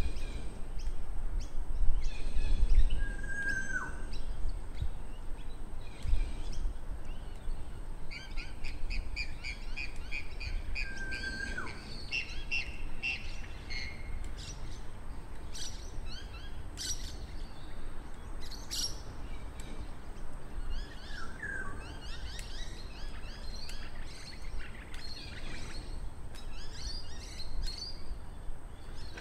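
Several birds calling and singing: varied chirps and quick trills, and twice a high whistle that holds steady and then drops in pitch. A low rumble is heard in the first few seconds.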